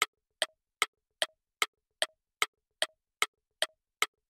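A steady run of sharp electronic clicks, about two and a half a second with eleven in all, each trailed by a short faint blip; a drum-machine tick used as a sound effect.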